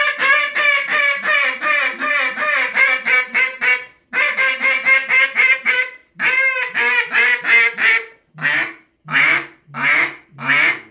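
Handmade Hank Walker Mass Hen duck call blown in rapid runs of hen-mallard-style quacks, about three or four a second, in three runs broken by short pauses. Near the end the quacks slow to single, spaced notes.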